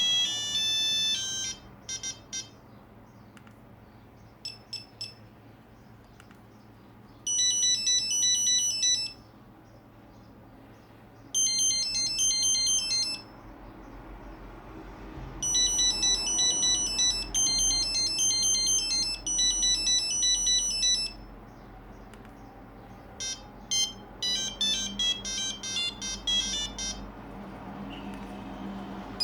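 Nokia 2100 mobile phone playing several of its built-in monophonic ringtones in turn: short high-pitched beeping melodies, each a few seconds long, with gaps between them.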